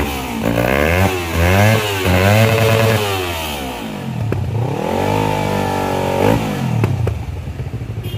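Yamaha R25's 250 cc parallel-twin engine is revved several times in quick blips through a hollowed-out slip-on silencer. The last rev is held for about a second before it drops back to idle.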